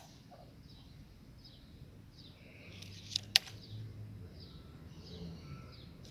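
A bird chirping over and over, short falling chirps coming about once or twice a second, with one sharp click a little past the middle.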